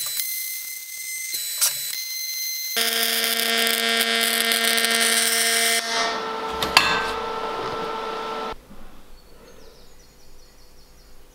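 Pulse MIG welding arc: a steady buzzing hum made of several held tones. It gets loud about three seconds in, shifts pitch about halfway through, and cuts off after about eight and a half seconds.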